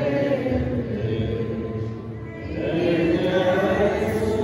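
A group of voices singing a slow hymn together, with long held notes; the singing drops off briefly about two seconds in for a breath between phrases, then picks up again.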